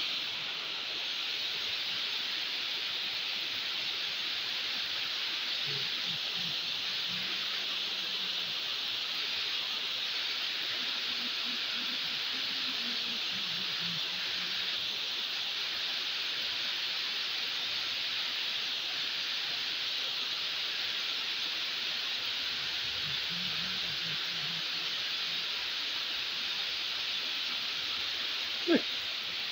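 Steady rush of water pouring over a small stone weir, an even hiss that holds throughout, with a short sharp knock near the end.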